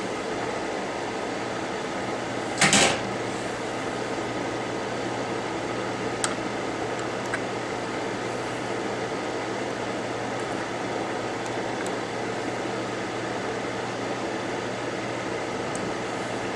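Steady blowing whir of a hot air rework station's fan, with one brief clatter about two and a half seconds in and a few faint ticks later.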